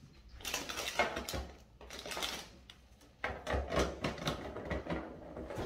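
A plastic-lidded cinnamon spice jar being handled: its lid twisted open and the jar shaken over a mixing bowl. It makes two runs of rapid clicks and rattles with a short pause between them.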